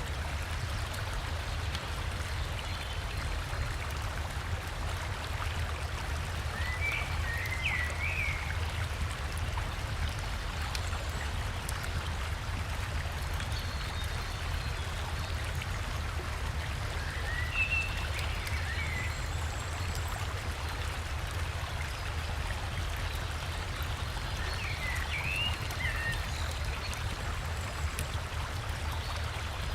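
Steady rush of a river and waterfall with a deep low rumble. A songbird calls three times, each a short cluster of quick chirping notes, several seconds apart.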